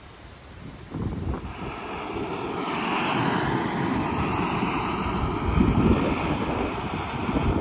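Screw-on gas-canister backpacking stove burning steadily under an aluminium pot, heating water; the burner noise starts about a second in and holds steady.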